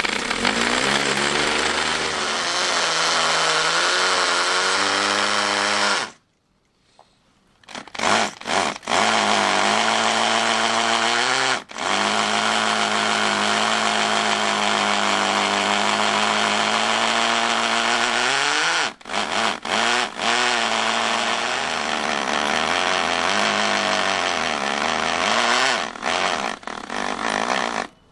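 Bosch PSB600RE hammer drill boring into concrete with an 8.5 mm masonry bit. The motor spins up with a rising whine and runs under load in long stretches. It stops once about six seconds in, is pulsed briefly on the trigger around eight, nineteen and twenty-six seconds, and cuts off at the end.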